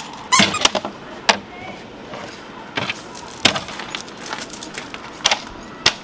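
Footsteps on gravel, with a few separate sharp knocks and scrapes as camping gear, including a woven fabric trash bin, is lifted and set down.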